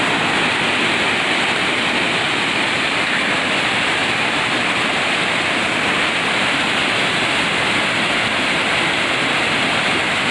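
Waterfall cascading over rock ledges into a pool: a steady, unbroken rush of falling water.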